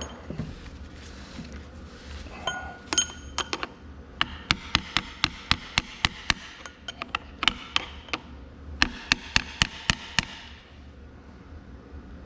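Hammer tapping on a steel seal retainer on a tractor axle housing to seat the seals: a few ringing metal knocks, then three runs of quick, light, even taps at about three a second.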